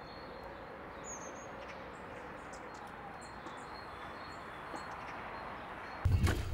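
Outdoor ambience: a steady background hiss with a few faint, short bird chirps. About six seconds in, it cuts abruptly to a much louder low rumble with knocks.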